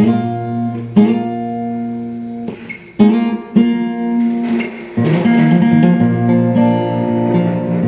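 Acoustic guitar played solo, chords struck about once a second and left to ring. The playing thins out briefly a little after two seconds in, then the strumming comes back fuller.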